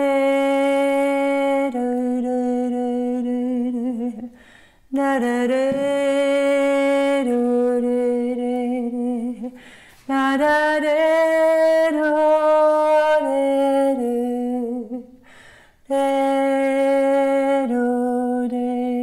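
A woman singing slow, wordless sustained notes in four long phrases with breaths between them; each phrase holds one tone and then steps down to a lower one.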